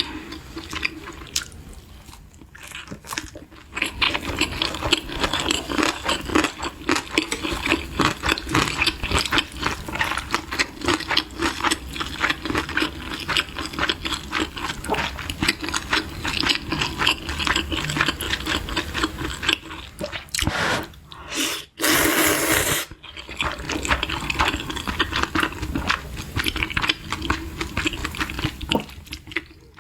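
Close-miked eating sounds: wet chewing and small mouth clicks, with one loud continuous slurp lasting about a second partway through.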